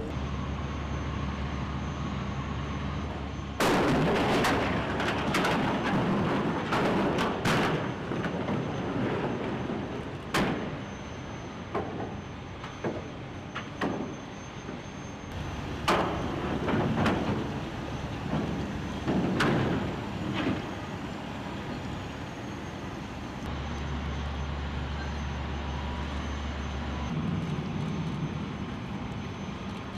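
Heavy crane machinery working steel wreckage: a hydraulic grapple claw gripping and wrenching bridge steel, with sharp metal crashes and clanks, a dense burst of them about four seconds in and several single ones later, over a steady engine drone.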